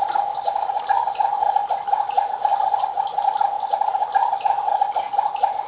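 Electronic cooking sound effect from a toy play kitchen, played through its small built-in speaker: a steady bubbling that sounds like water but is meant to be food cooking.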